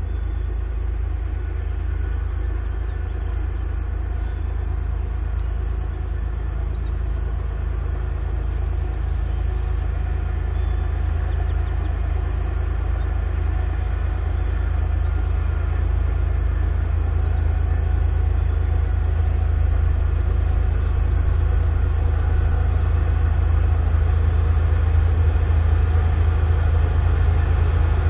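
BNSF diesel freight locomotives running with a steady, low engine drone that grows slowly louder, as of a train drawing nearer.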